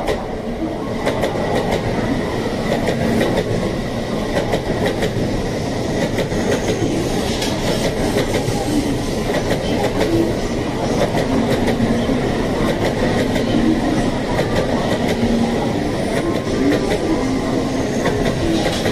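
N700A Shinkansen train pulling into a station platform: a steady rumble of wheels on rail with a run of clicks as the cars pass over the track.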